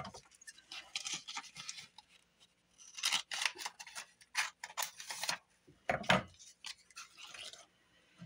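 Scissors cutting paper: a series of short snips, densest about three to five seconds in, with a knock about six seconds in.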